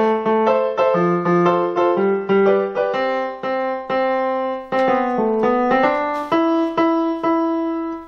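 Yamaha PSR-EW410 76-key portable keyboard played with a piano voice: a steady stream of struck notes, a melody over a lower left-hand part, several notes a second.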